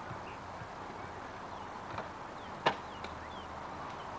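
Steady outdoor background hiss with faint, short high chirps of small birds, and one sharp click a little past halfway.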